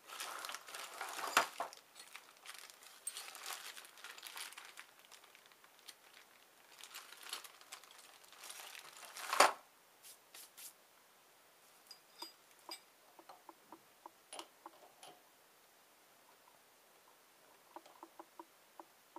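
Handling noises with the lathe stopped: crinkling and rustling with two sharp clicks, the louder one about nine seconds in. Scattered light ticks follow. Near the end come small metallic clicks as a chuck key is worked in the lathe's three-jaw chuck.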